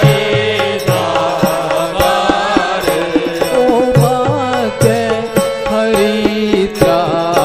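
Devotional badhai pad for Radha Ashtami: singing over a held drone, with hand-drum strokes keeping a steady beat.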